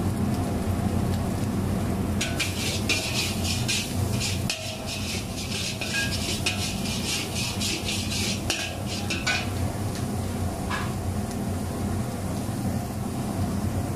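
Metal spatula scraping and clanking against a large iron kadai as rice and vegetables are stir-fried. The rapid repeated strokes begin about two seconds in and stop about nine seconds in, with one more shortly after. Under them runs a steady low hum.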